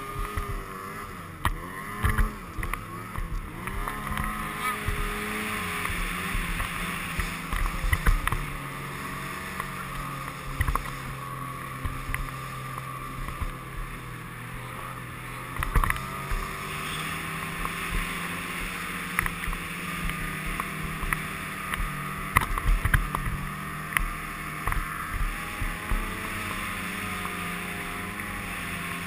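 Snowmobile engine running under load through deep powder, its pitch rising and falling as the throttle works, with occasional thumps from the sled bouncing over the snow.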